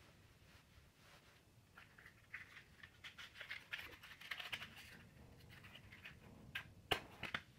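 Wooden matches rattling and scraping as a matchbox is opened and a match taken out, then a match struck against the side of the box, a few sharp scrapes near the end.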